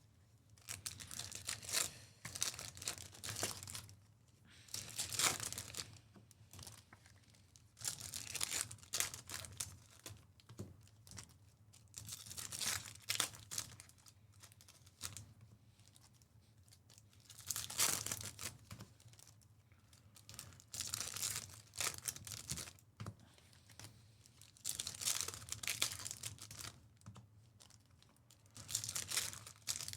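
Trading-card pack wrappers being torn open and crinkled, one after another, in about eight short rustling bursts a few seconds apart.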